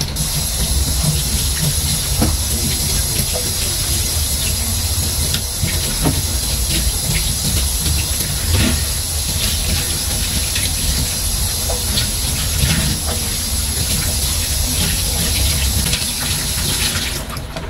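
Tap water running into a stainless steel sink while hands rub and rinse eggplants and long beans under the stream, with occasional small knocks. The water stops near the end.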